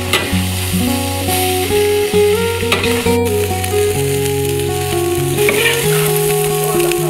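Food sizzling in a hot wok while a metal ladle scrapes and scoops it out, with a few sharp scrapes of the ladle on the pan. Background music with plucked, held notes plays over it.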